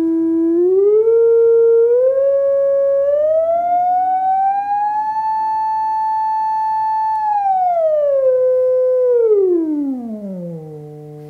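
Sine-wave tone from a loudspeaker driven by a signal generator, its frequency being turned up and down. The pitch climbs in small steps and a slow glide to a higher note, holds there for a couple of seconds, then slides back down to a low hum, which is quieter, near the end.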